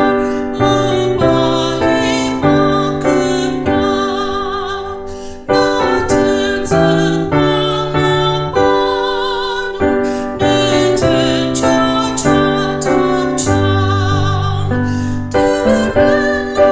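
Instrumental keyboard music in a piano sound: chords and a melody, each note struck and then fading.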